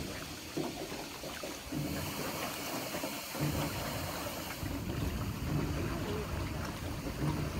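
Water lapping and splashing against a small river boat as it moves along.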